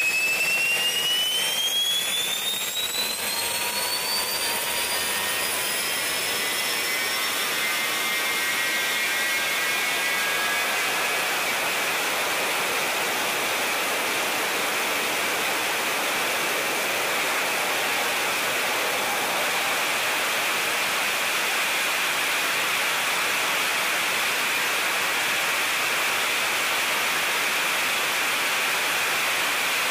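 General Electric F101 turbofan running. A whine rises in pitch over the first six seconds or so as the engine spools up, then it settles into a steady rushing jet noise.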